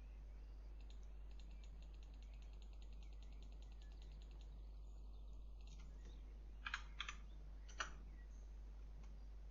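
Computer keyboard and mouse in use: a fast, even run of faint ticks for several seconds, like a scroll wheel or light keys, then a few louder separate clicks near the end, over a low steady electrical hum.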